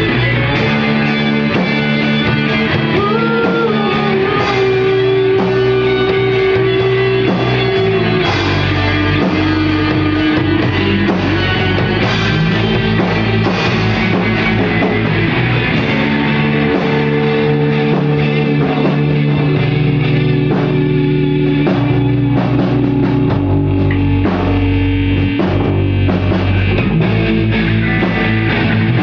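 A rock band playing a song at rehearsal: guitars over bass and a drum kit, loud and unbroken.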